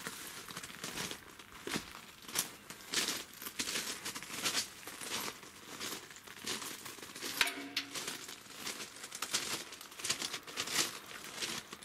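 Footsteps crunching on gravel track ballast and dry grass at a walking pace, an irregular series of crackly crunches. A brief pitched sound comes about seven and a half seconds in.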